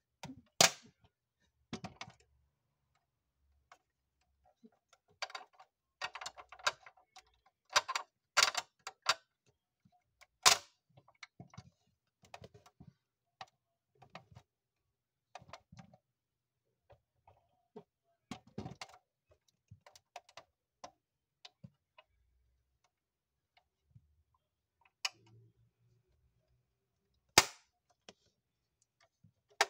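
Sharp clicks and snaps of the opening doors and tailgate of a 1/18 scale Range Rover Vogue model being pushed shut by hand, with small clattering handling noises in between. A handful of single loud clicks stand out.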